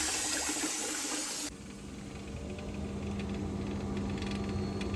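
Hot water tap running with a loud hiss that cuts off about a second and a half in, leaving a steady hum with faint ticking from the combi boiler as water flows through it. The noise is the customer's complaint, which the plumber puts down to the boiler's flow turbine.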